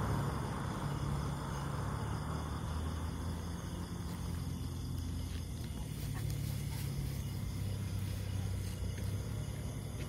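Vehicle engine idling with a low steady hum that dips slightly in pitch partway through. Mid-range road noise fades away over the first couple of seconds.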